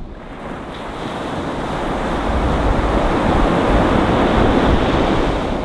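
Surf breaking and washing up a pebble beach, the rush of water swelling over the first few seconds and easing slightly near the end, with wind rumbling on the microphone.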